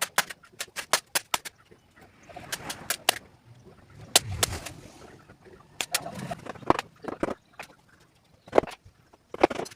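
Sharp knocks and taps from tools during sofa repair work, in a quick run of several strikes a second, then in scattered clusters and single strikes, with some scraping between them.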